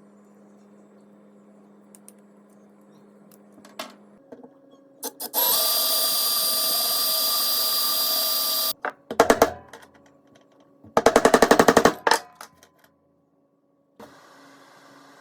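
Small power tool running steadily for about three seconds, then a short stutter and a burst of rapid pulses about a second long.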